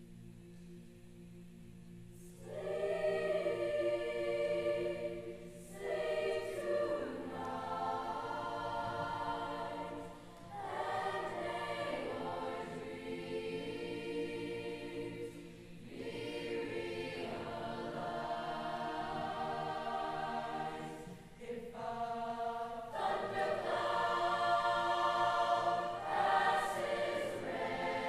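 Girls' choir singing in several sung phrases, which begin about two seconds in after a soft sustained opening, with short breaks between the phrases.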